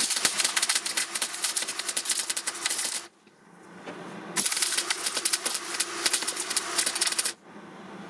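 MIG welder laying two short welds on steel: a steady fast crackle of the arc for about three seconds, a break of about a second, then a second crackling weld of about three seconds that stops abruptly.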